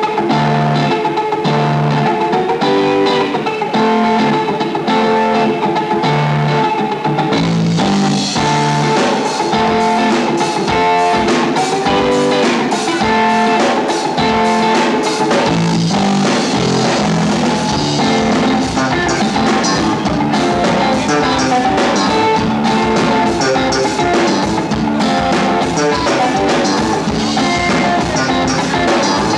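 Live funk rock band playing a riff: electric guitar and bass over a drum kit. The sound gets fuller and brighter about seven seconds in.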